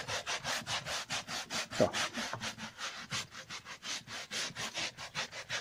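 Stiff scrubbing brush scouring a soapy woven rag rug in quick back-and-forth strokes, a rhythmic scratchy rasp of about four to five strokes a second. A short rising squeak comes just before two seconds in.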